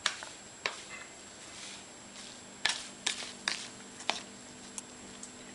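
Light knocks and clicks of a spoon and bowl being handled, about seven short taps spread out, two coming close together about three seconds in, over a faint steady hum.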